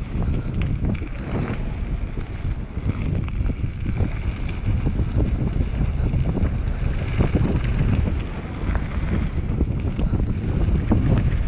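Mountain bike descending a gravel trail at speed: wind buffets the camera's microphone in a steady low rumble, while the tyres crunch over loose gravel and the bike rattles with many small knocks over the bumps.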